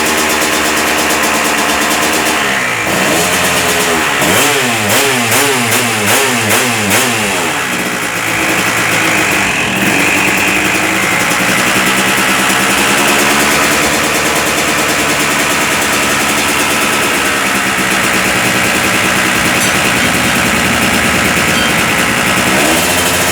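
Suzuki RM two-stroke motocross engine running, blipped quickly about five times a few seconds in, then held steady with a couple of slower rises in revs.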